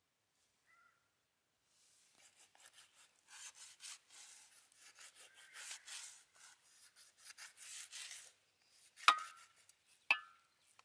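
Kitchen knife blade scoring whole raw fish, rasping through the scaly skin in quick scratchy strokes. Near the end come two sharp taps about a second apart.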